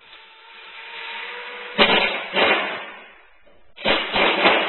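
Cordless drill driving a screw-in (zip-in) drywall anchor into sheetrock: the motor runs with a rising whir, then loud harsh grinding bursts, twice about two seconds in and again near the end.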